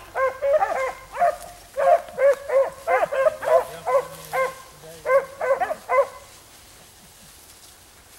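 Rabbit-hunting hounds baying in short repeated calls, about two a second, as they trail a rabbit's scent; the calls stop about six seconds in.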